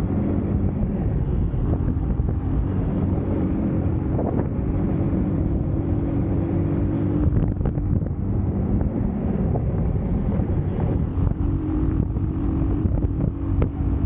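Eagles EBA250 250cc motorcycle engine running at a steady pace under heavy wind buffeting on the microphone, with a few short knocks.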